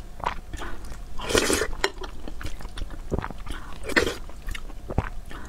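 Eating sounds: wet mouthfuls of rice in broth taken from a wooden spoon and chewed, two long noisy mouthfuls about a second and a half in and again about four seconds in, with a few sharp clicks between.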